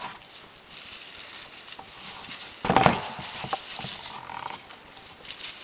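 PVC pipe and fittings being handled and pushed together, with small plastic clicks and one loud clattering knock about three seconds in.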